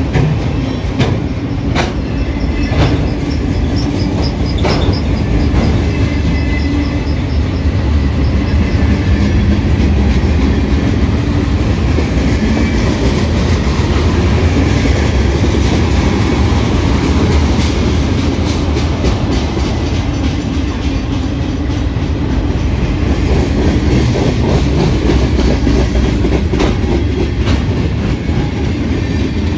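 Freight train rolling steadily past, its wheels clicking over the rail joints, with a faint high wheel squeal in the first few seconds.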